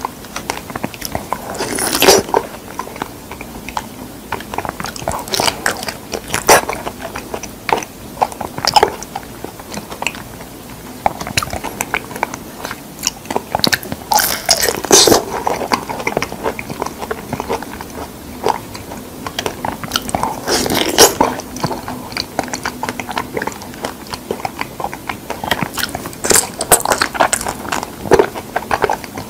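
Fresh figs being bitten and chewed: wet smacking mouth sounds with small clicks, and louder bites every few seconds.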